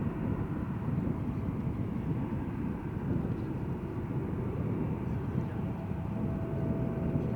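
Airbus A380-841's four Rolls-Royce Trent 970 engines at takeoff power during departure: a steady deep rumble with a faint whine above it.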